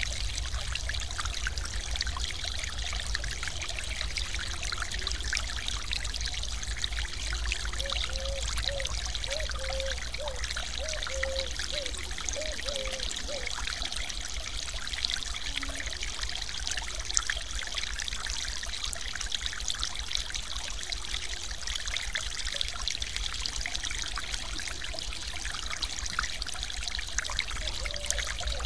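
Water pouring steadily over a small weir in a mountain stream: a continuous splashing rush.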